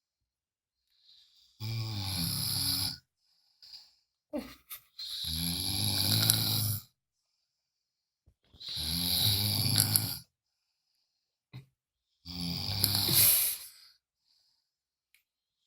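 A sleeping person snoring: four long, low snores about three and a half seconds apart, with silence between them.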